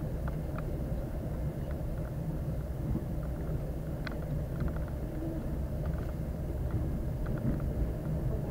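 Steady low rumble of a moving passenger train heard inside the carriage, with faint scattered clicks and rattles.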